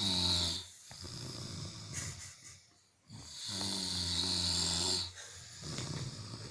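A sleeping person snoring: two long, deep snores about three seconds apart, with quieter breathing between.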